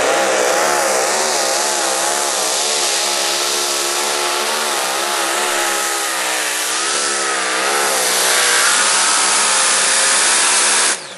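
Supercharged engine of the Intertechno Predator, a VW Beetle-bodied tractor puller, running at full throttle under heavy load as it drags a weight-transfer sled down the track. The engine note wavers up and down throughout, then cuts off suddenly near the end.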